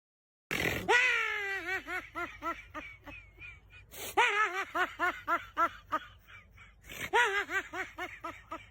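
High-pitched laugh from a meme sound effect, played three times in a row. Each time it opens with a drawn-out note that falls in pitch, then breaks into a quick run of 'ha-ha' pulses, about five a second, that fade away.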